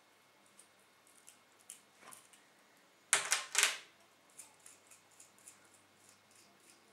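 Small metal screws and nuts clicking lightly as they are handled and the nuts are turned off. About three seconds in, a short loud clatter of three or four metal clicks as the screws are set down on the table.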